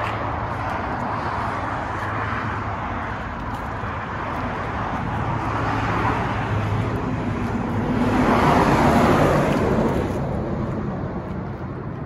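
Road traffic: vehicles passing on a highway, a steady rush of tyre and engine noise that swells as one goes by about nine seconds in and then fades.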